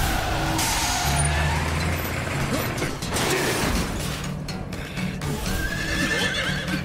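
A horse's whinny from the anime's black shadow motorcycle, which neighs like a horse instead of revving an engine, over dramatic background music.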